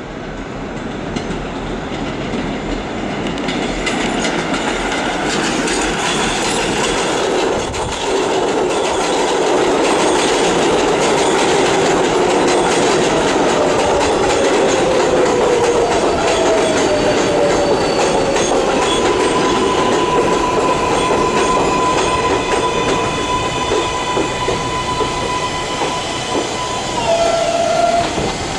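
New York City 7 subway train pulling into an elevated station. The wheel and rail noise builds over the first ten seconds and then holds loud. About halfway through a falling whine comes as it brakes, followed by a long steady whine as it slows to a stop.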